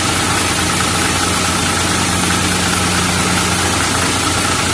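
Truck engine idling steadily, a low even hum with a steady hiss over it.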